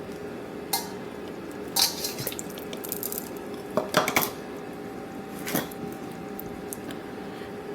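Kitchen utensils and dishes clinking and tapping, about six short knocks spread over several seconds, as ingredients are measured and added for a marinade. A faint steady hum sits underneath.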